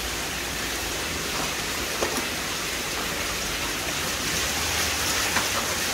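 Steady splashing and pouring of water into a plastic basin crowded with koi, with a bucketful of water poured over the fish around the middle.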